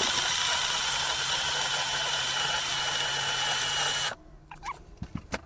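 Portable USB-rechargeable blender's small motor running steadily with a high whine, blending banana and blueberries, then cutting off about four seconds in. A few light knocks follow.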